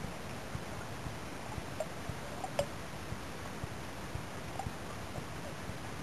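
Underwater ambience heard through a dive camera: a steady hiss with scattered small clicks and ticks at irregular intervals.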